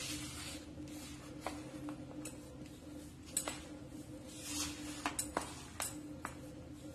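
Hand rubbing flour, oil and spices together in a plastic bowl, with a series of sharp clinks from bangles on the wrist, the loudest about three and a half seconds in and several close together around five seconds. A steady low hum runs underneath.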